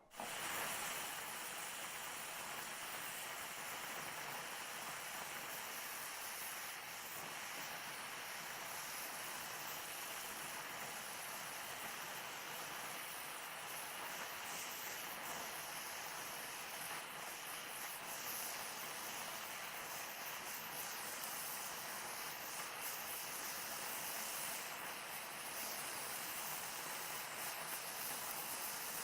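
Oxyacetylene welding torch flame hissing steadily while beads are run on a steel test coupon.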